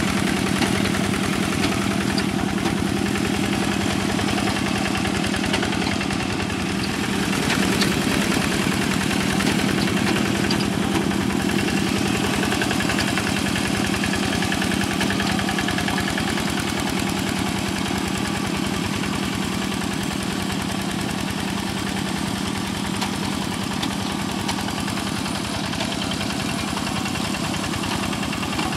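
Quick G1000 two-wheel hand tractor's single-cylinder diesel engine running steadily with a fast, even pulse as it works through flooded paddy mud.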